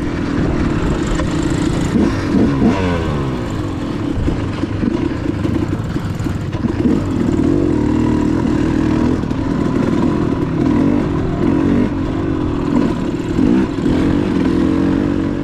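A motor vehicle's engine running continuously, rising and falling a little in pitch as the load changes.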